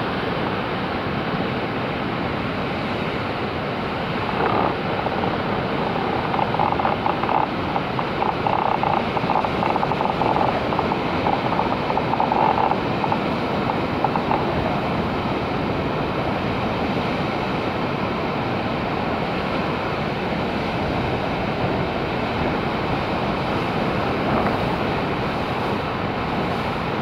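Pacific surf breaking over coastal rocks: a steady roar of waves and foam, with wind buffeting a microphone that is covered in tape. It swells louder for several seconds in the first half.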